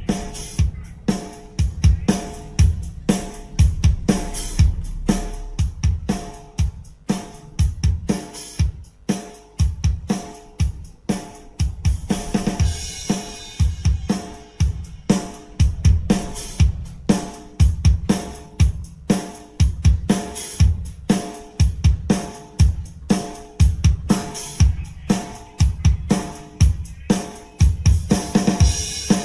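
Drum-heavy music with a steady beat of bass drum, snare, hi-hat and cymbals, played through a JBL Xtreme 3 portable Bluetooth speaker, its bass hits strong.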